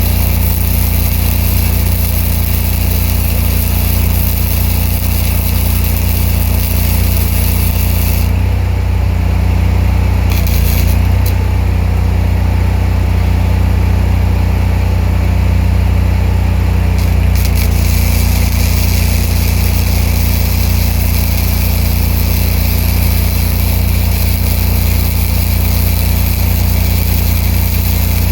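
A steady engine-like hum runs under the crackling hiss of a MIG welding arc from a READYWELDER spool gun. The arc stops about eight seconds in and starts again about nine seconds later.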